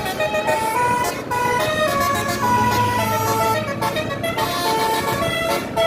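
A tour bus's basuri telolet horn playing a tune: a quick run of musical horn notes, some short and some held, changing pitch every fraction of a second.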